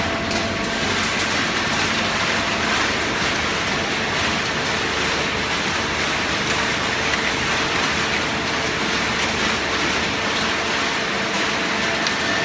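Hydraulic carton baler running: a steady, even mechanical noise with a faint steady whine in it.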